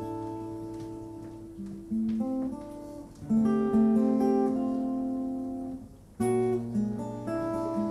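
Acoustic guitar playing slow strummed chords, each left to ring out. A new chord is struck every second or two, with a louder one about six seconds in.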